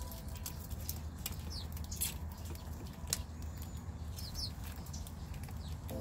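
Sharp irregular clicks and taps of common grackles pecking seed from a metal feeding tray, with a few short falling high bird chirps, over a steady low rumble.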